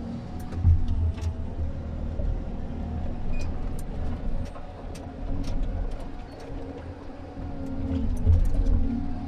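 Komatsu 931.1 forestry harvester heard from inside its cab: the diesel engine and hydraulics drone steadily while the crane and head work. The low rumble swells and eases, loudest about a second in and again near the end, with scattered light clicks and knocks over it.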